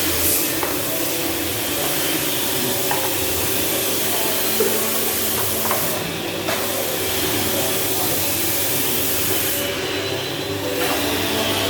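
Conveyor feeder machine running: a steady mechanical hum with hiss over it and a few faint clicks.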